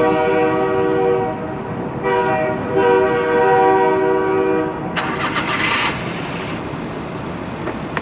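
A horn sounding two long steady blasts, the second longer than the first, followed about five seconds in by a loud hiss lasting about a second, over a steady background rumble.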